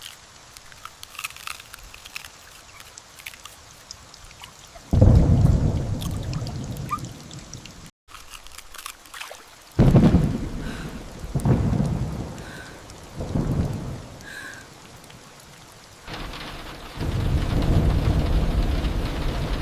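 Thunderstorm: steady rain with pattering drops, broken by loud peals of thunder. The first rolls in about five seconds in, three more come close together in the middle, and a long heavy rumble builds near the end.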